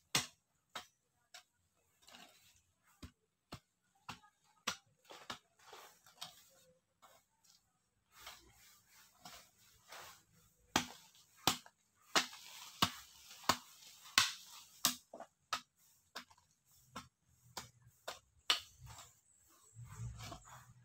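Steel hoe blade chopping into soft earth: sharp knocks, up to about two a second, with loose soil scraping and crumbling between them. The strokes come thicker and louder in the middle stretch.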